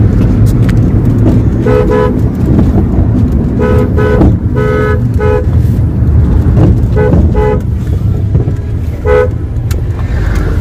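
Steady low rumble of a 2000 Toyota Vista being driven, heard from inside the cabin, with a two-tone car horn beeping in short taps: about ten beeps in clusters, one a little longer around five seconds in.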